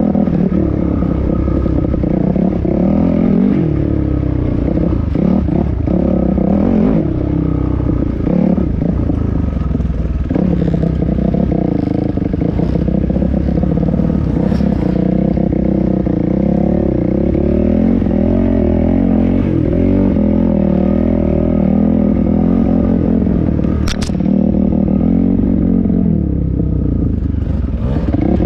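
Dirt bike engine heard up close from the bike itself, running under varying throttle so its pitch rises and falls, with knocks and rattles from the bike working over a rough rutted trail. A sharp click about 24 seconds in.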